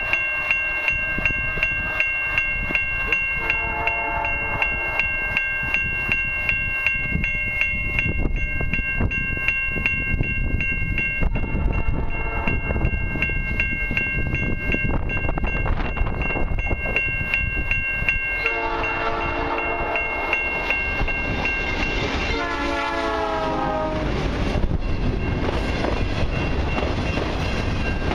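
A grade-crossing bell rings steadily, about two strokes a second, while an approaching freight locomotive sounds its Nathan Airchime P5 horn in four blasts; the uploader calls the horn foul sounding. The last blast drops in pitch as the lead diesels pass, and the rumble and wheel clatter of the passing freight cars take over near the end.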